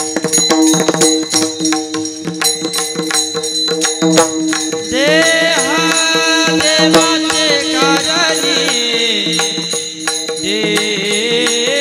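Devotional kirtan music: percussion keeps a fast, dense beat, and about five seconds in a singer comes in with long, wavering held notes.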